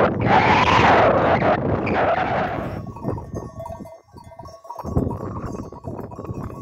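Wind buffeting the microphone in a loud rush for about the first three seconds. After that come the thin, steady clinks of bells on grazing sheep.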